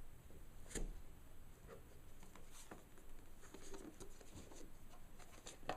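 Faint rubbing and light clicks of hands twisting the circular bottom lid of a 2010 Mac Mini to unlock it, with a sharper click about a second in and another near the end.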